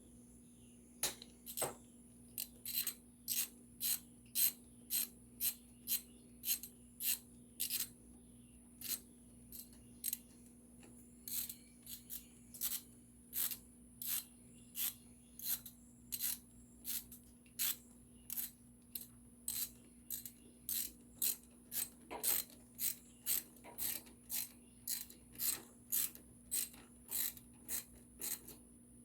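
Ratchet wrench clicking at about two clicks a second as 8mm bolts are loosened and backed out, with a short pause about ten seconds in. A faint steady hum runs underneath.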